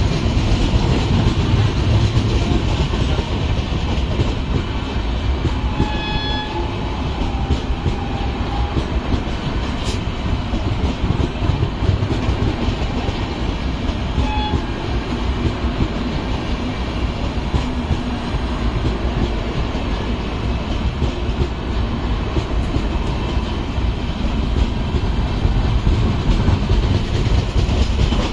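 Passenger train coaches rolling steadily past on the rails, a continuous rumble and clatter of wheels. A brief horn sounds about six seconds in.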